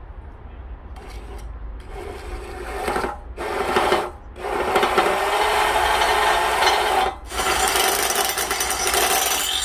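Handheld electric drill with a 5 mm bit boring pilot holes through a steel square-tube frame for a 6 mm tap. It runs in loud bursts with short stops about three, four and seven seconds in, the longest run being the second half.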